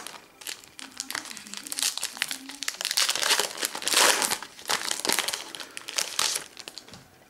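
Foil wrapper of a Topps WWE Undisputed trading-card pack being crinkled and pulled open by hand, an irregular run of crackles. The crackling is loudest about four seconds in and dies away near the end.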